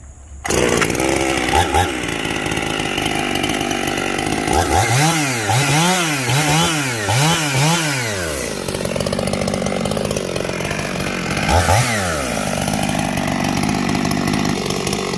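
Husqvarna 55 Rancher two-stroke chainsaw with a 28-inch bar, catching about half a second in and then running. It revs up and down four times in quick succession, settles back to idle, and blips twice more near the end.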